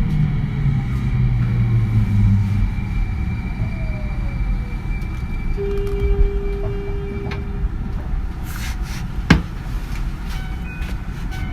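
Tsukuba Express 2000 series electric train running and slowing, its motor tones falling in pitch under the rumble, the sign of a train braking toward a stop. A steady tone sounds for about two seconds midway, and a single sharp click comes near the end.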